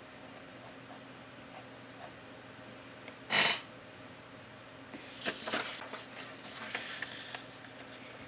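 A marker scratching faintly on paper as the last of an equation is written, then one short loud rustle about three seconds in. From about five seconds in, sheets of paper rustle and slide for a couple of seconds as the written page is swapped for a blank one.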